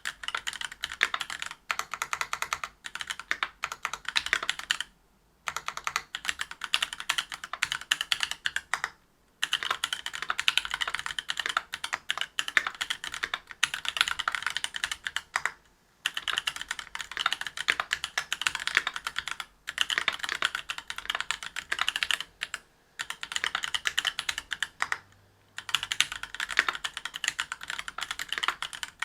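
Continuous fast typing on a mechanical keyboard with stock, unlubed Gateron Silver Snow 65 g tactile switches in a brass plate under GMK keycaps, a dense stream of key clacks broken by a few short pauses.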